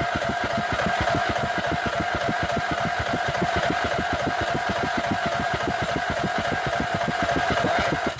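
Riding mower's 17.5 engine cranked by its electric starter without catching: a steady starter whine over an even chuffing of about seven strokes a second. The cranking stops suddenly near the end.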